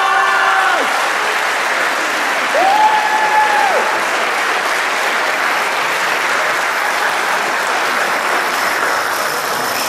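A crowd applauding steadily, with two short held tones sounding over it, one ending just under a second in and the other about three seconds in.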